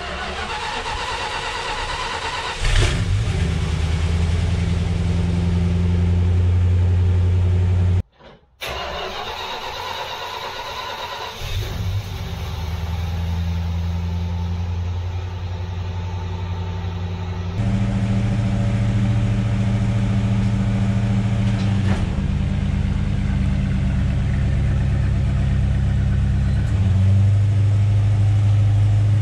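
A 318 small-block V8 in a 1970 Dodge Coronet starting and then idling steadily. The engine catches with a sudden rise in level about three seconds in, drops out briefly a little before the middle at an edit, and its idle tone shifts twice later on.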